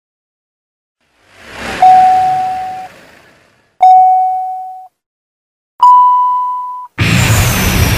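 Start-countdown beeps in a motion-ride film soundtrack: three electronic beeps about two seconds apart, the first two on the same pitch and the third higher, each held about a second and fading away. A rising whoosh leads into the first beep, and about seven seconds in a loud rushing rumble starts as the ride launches.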